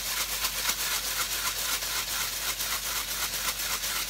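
Sesame seeds rattling and hissing against a glass bowl as a gloved hand swirls a dough ball round in them, in quick even strokes about six a second.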